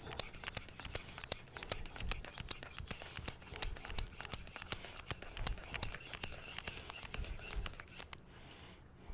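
R2/SG2 powdered-steel knife blade stroked back and forth on a wet synthetic whetstone: a quick run of gritty scraping strokes that stops about a second before the end.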